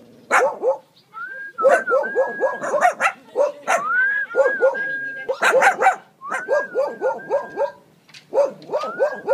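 Small dog yapping in quick runs of short high barks, about four or five a second, broken by higher drawn-out whines that rise and then hold.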